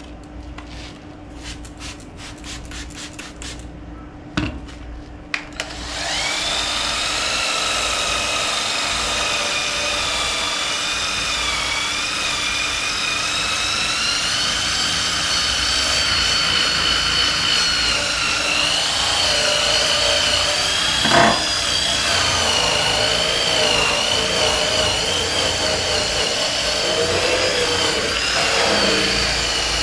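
Cordless drill spinning a scrub-pad attachment against a car's painted fender. There are a few light clicks at first; from about six seconds in the drill runs steadily, its whine wavering slightly as the pad is pressed and moved over the panel. A short knock sounds a little past twenty seconds.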